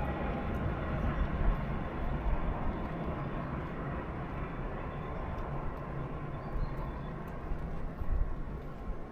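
Steady low rumble and noise of a train on the move, slowly fading.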